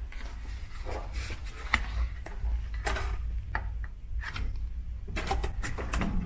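Light clicks, taps and rubbing of a plastic key card against a hotel door's card-reader lock and door hardware, with a sharper cluster of clicks near the end, over a low steady hum.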